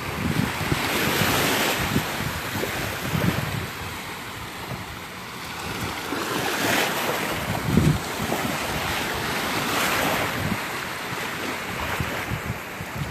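Small Gulf of Mexico waves breaking and washing up the beach, the hiss swelling and fading every few seconds. Wind buffets the microphone with low rumbling gusts, the strongest a little before the 8-second mark.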